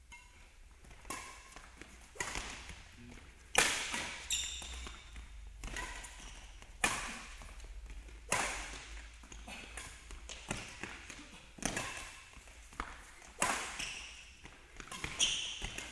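Badminton rally: rackets striking the shuttlecock back and forth, a sharp hit about every second, each echoing briefly in the hall, with a few short shoe squeaks on the court floor.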